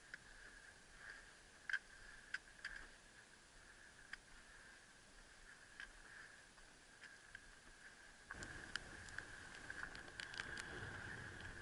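Faint footsteps on a rocky, gravelly mountain trail: scattered light clicks of boots on loose stones. About eight seconds in, a low rumble of wind on the microphone comes up and the steps come more often.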